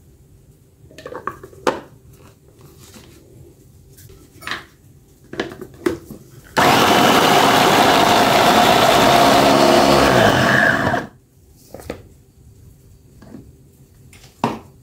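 Electric mini food chopper running for about four and a half seconds, chopping chillies, shallots and garlic coarsely. It starts suddenly midway and cuts off again. Before it come a few light knocks as the bowl and motor top are handled.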